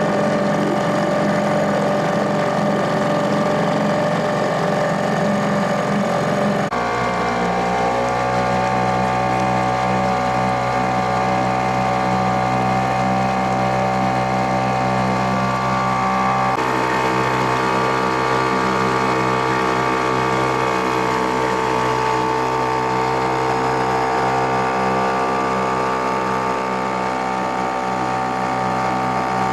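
Yamabisi 2.6 hp two-stroke outboard motor running steadily under way at a constant throttle, with the wash of water along the boat. Its note changes abruptly twice, at about 7 and 16 seconds in.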